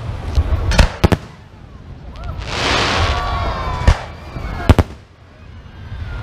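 Aerial firework shells bursting overhead: sharp bangs, a cluster about a second in and more at about four and five seconds, with a longer spell of dense hiss in the middle.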